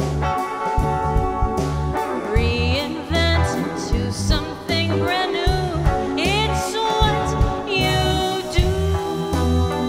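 Live indie rock band playing a song: a woman sings lead over electric bass and a drum kit with a steady beat.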